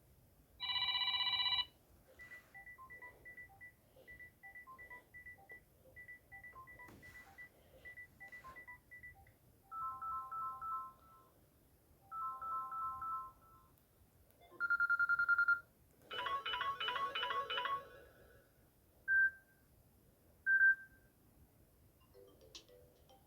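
Samsung Galaxy A16 One UI ringtones played one after another as short electronic snippets with brief gaps between them. They run from a short chord to runs of quick high beeps, two-note beeps, a single held tone and a busier melodic pattern, ending with two short blips.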